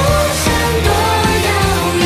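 Pop song performed live: women singing into microphones over a loud backing track with a steady beat.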